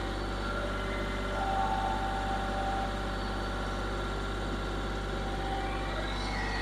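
Kioti CK4020 compact tractor's diesel engine running steadily at low speed as the tractor creeps forward with its pallet forks, with a slight rise and a higher whine for about a second and a half, a little over a second in.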